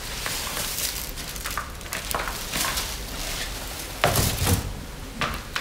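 Large sheets of paper and card being lifted and leafed through on a stack, rustling and flapping, with a louder handling burst and knock about four seconds in.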